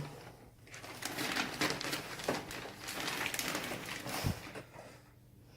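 Rustling and light clicking of cardboard and plastic packaging being handled as boxed Funko Pop figures are taken out, in irregular bursts that fade out about a second before the end.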